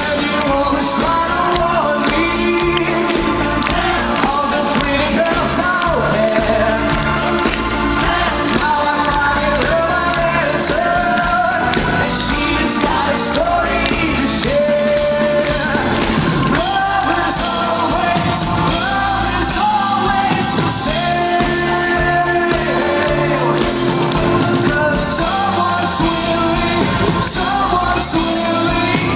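Rock-pop song with singing over a full band, with drums and bass keeping a steady beat.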